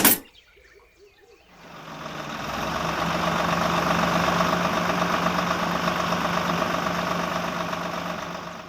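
A sharp click, then a small motor starts about a second and a half in and runs steadily with a constant hum, fading away near the end.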